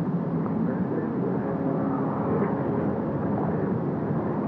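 Steady outdoor background rumble with no distinct events and no club strike.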